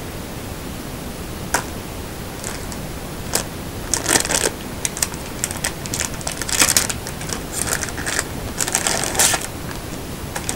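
Clear plastic packaging bag crinkling and rustling in the hands in irregular bursts, with a few sharp clicks, as the headphones are pulled out of it, over a steady background hiss.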